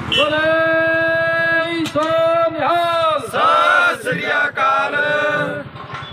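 A man singing in long held notes, the pitch dipping and bending between phrases, with a low regular pulsing underneath.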